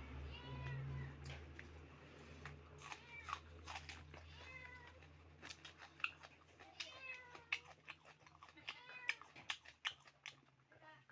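A cat meowing over and over, a string of short meows every second or two, with sharp clicking chewing sounds in between.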